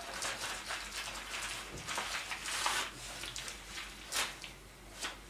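Crumpled paper packing crinkling and rustling as it is handled in a cardboard box and tossed aside, loudest about two and a half seconds in, with a sharp crackle near four seconds.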